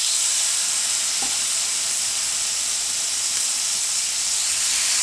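Pork belly slices sizzling steadily on a hot ridged stainless-steel grill pan, an even frying hiss.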